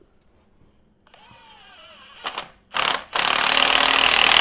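Cordless impact driver tightening the exhaust clamp bolt: the motor whines with a sliding pitch as the socket spins, then a short blip, then from about three seconds in it hammers loudly and continuously as the bolt seats.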